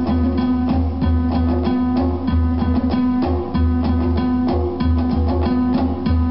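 Guitar-led music with a strong, pulsing bass line, played back over PSB B-25 bookshelf speakers driven by a Sony TA-N7050 amplifier.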